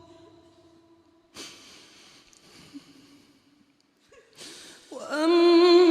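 Male Quran reciter's chanted voice: a long held note fades away with reverb, then two audible intakes of breath about a second and a half in and just after four seconds. The melodic recitation starts again near the end on a rising note.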